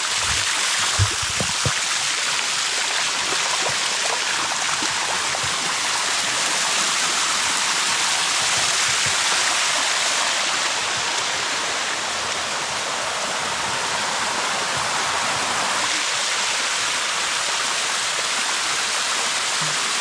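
Shallow water rushing steadily down the limestone cascade of the Bua Tong (Sticky) Waterfall, an even hiss of flowing water. A couple of soft low knocks come about a second in.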